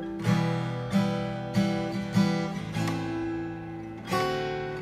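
Acoustic guitar strumming chords: six separate strokes, each left to ring. The first five come about every 0.6 s, and the fifth rings for over a second before the last.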